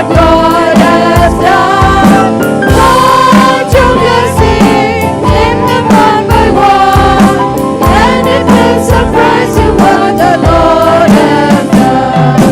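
Gospel worship song: voices singing together over a band with a steady drum beat.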